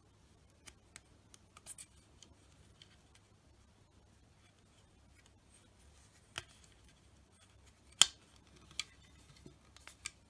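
Scattered light clicks and taps from hands working on a tennis racket frame and its vinyl wrap, with one sharp, much louder click about eight seconds in.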